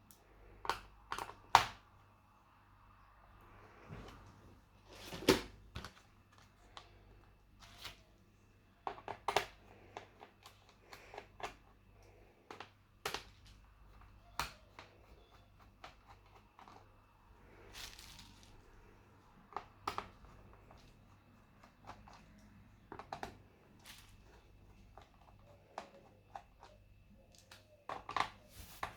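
Irregular clicks, taps and knocks of small tools and plastic parts being handled during laptop disassembly, with a few louder knocks among the light clicks.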